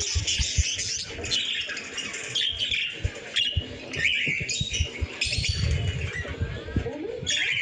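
Budgerigars chattering and squawking in a busy, continuous stream, with dull low knocks underneath.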